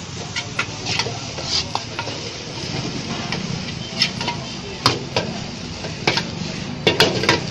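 Food sizzling in a hot wok while a metal spatula stirs it, with irregular sharp clanks of metal on metal and a cluster of them near the end.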